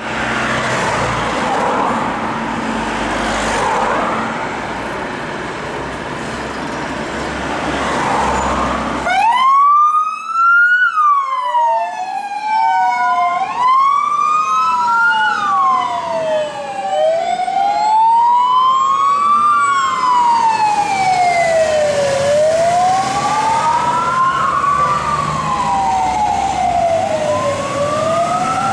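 Diesel engines of two fire engines running as they pull out, then from about nine seconds in two electronic sirens start, wailing up and down out of step with each other.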